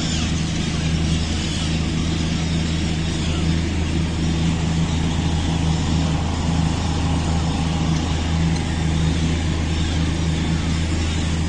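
An engine running steadily: a low, even hum with a broad hiss over it.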